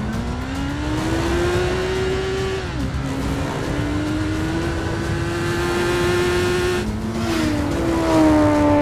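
Motorcycle engine accelerating hard through the gears: its pitch climbs, drops at a shift about three seconds in, then climbs again and holds. A short rushing pass comes about seven seconds in, followed by other engine notes near the end.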